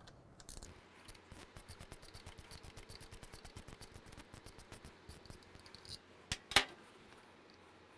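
Hand ratchet wrench clicking rapidly and evenly, about eight clicks a second, as a bolt is backed out of the motorcycle's engine-side mounting. It stops about six seconds in, followed by two sharp metallic clinks, the second the loudest.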